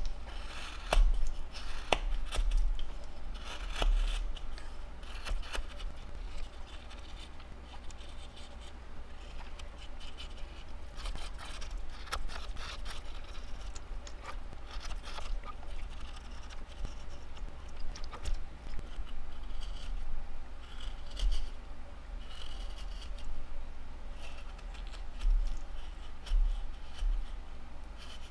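Craft knife whittling a wooden blank: irregular short cutting and scraping strokes as chips and shavings come off the wood, over a steady low hum.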